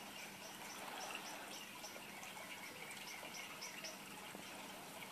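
Quiet room tone with faint, short high chirps repeating through the background several times a second.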